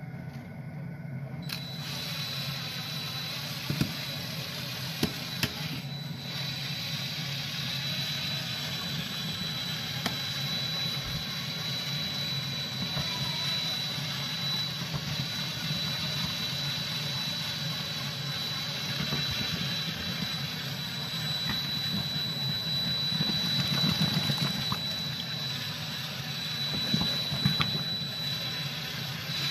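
Cordless drill turning a welded flat-steel paddle stirrer in a kettle of boiling scrapple mush, a steady motor whine that comes in about a second and a half in, with a few light knocks.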